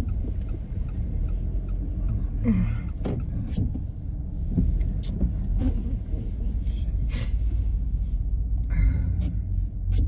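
Low, steady rumble of a car driving, heard from inside the cabin, with scattered crackles from a plastic snack wrapper being handled.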